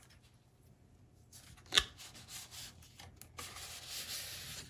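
Cardboard retail box being opened: a sharp click a little under two seconds in, a few light taps, then the inner cardboard tray sliding out of its sleeve with a dry rubbing scrape for about a second near the end.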